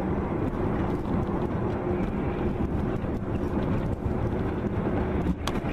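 Steady engine and road noise of a vehicle driving on a wet highway, heard from inside the cab. A short sharp knock comes just before the end.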